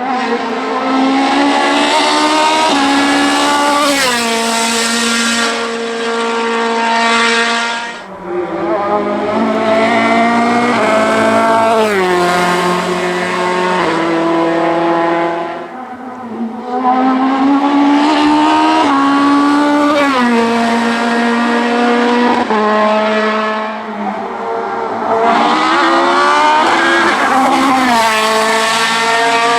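Race car engines revving hard and accelerating through the gears. The pitch climbs and drops sharply at each gear change, with brief dips in loudness about every eight seconds between runs.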